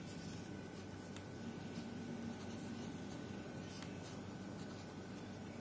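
Pen writing on paper: faint, irregular scratching strokes of the tip as a line of handwriting is written.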